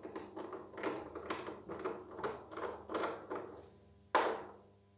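Torque screwdriver turning a screw into the plastic housing of a Kärcher HD 5/15 C+ pressure washer: a series of short rasping turns, about two a second, then one sharp click about four seconds in.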